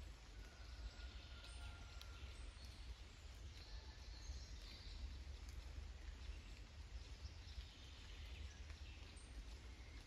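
Faint forest ambience: distant birds giving short high calls now and then, with a few scattered raindrops dripping, over a low steady rumble.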